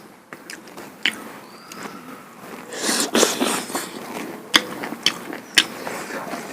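Close-miked eating of spicy duck curry: chewing with sharp wet mouth clicks and smacks, and a brief louder noisy stretch about three seconds in.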